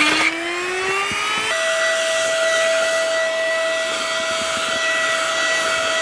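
Baseus A2 handheld car vacuum running with its brush nozzle on a carpet mat: the motor's whine rises in pitch, then about one and a half seconds in jumps to a steady high whine over a rush of suction air.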